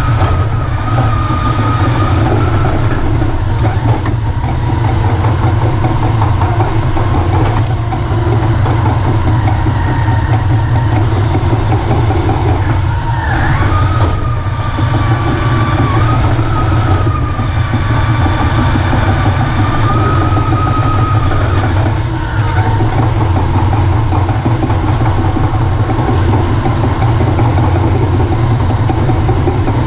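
Caterpillar D5 bulldozer's diesel engine running steadily, with a wavering high whine that comes and goes and a few clanks.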